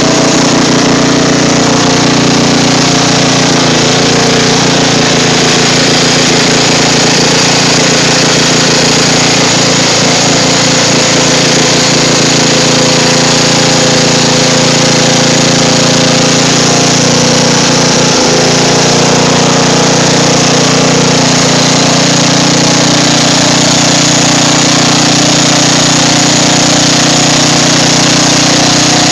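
Riding lawn mower's engine running steadily and loudly under way.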